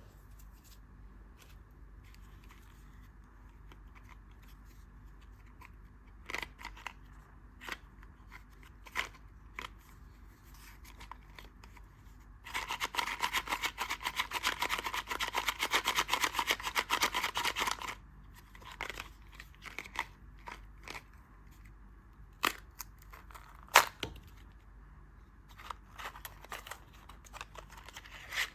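Candy packaging being opened close to the microphone: scattered clicks and crinkles, then about five seconds of dense crackling as a wrapper is opened, then more scattered taps and crinkles with one sharp click.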